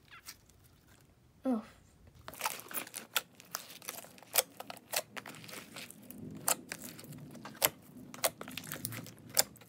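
A large mass of mixed slime squished and kneaded by hand in a plastic tub, making sticky, wet crackles and pops. They come quick and dense from about two seconds in.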